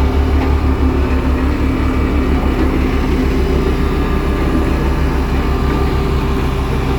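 Heavy diesel construction machinery running steadily at close range, with a rapid low throb under the engine note.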